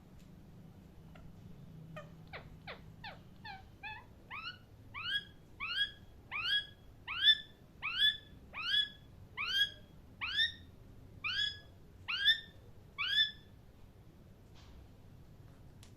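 Parrot calling: a few quick falling notes, then a steady run of rising, upswept calls at about two a second, stopping a few seconds before the end.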